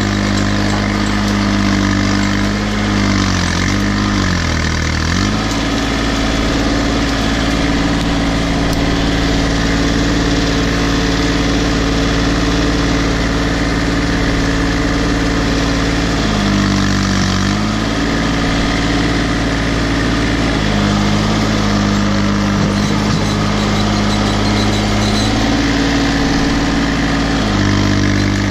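Case 235 compact tractor's diesel engine running steadily under the operator, its speed dipping and recovering several times: around 3 to 5 seconds in, again around 16 to 18 seconds, briefly near 21 seconds and once more near the end.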